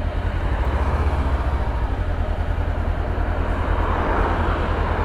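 Honda CB500X's parallel-twin engine running through its newly fitted Akrapovic exhaust as the motorcycle rides in town traffic: a steady low pulsing rumble under a rush of wind and road noise that swells a little near the end.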